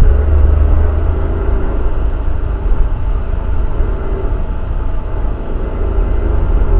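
Engine and road noise heard inside a moving Suzuki Jimny: a steady low drone and rumble.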